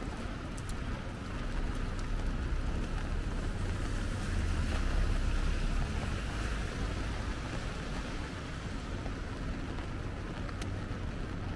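Rainy city street traffic: a vehicle passes on wet pavement, its tyre hiss and low engine rumble swelling for a few seconds and fading back into the steady rain and traffic background.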